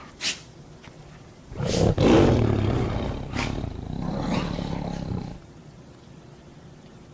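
Two dogs growling as they play-fight. The growls are loud and rough from about a second and a half in until about five seconds in, then die away.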